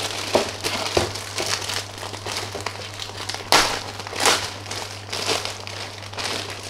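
Plastic bags crinkling and rustling in irregular bursts as a plastic model kit's bagged parts runners are handled, loudest about three and a half seconds in.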